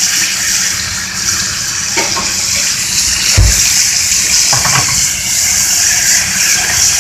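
Steak frying in a skillet in a bubbling butter-and-white-wine pan sauce, a steady high sizzle as the sauce reduces. A single low thump about three and a half seconds in.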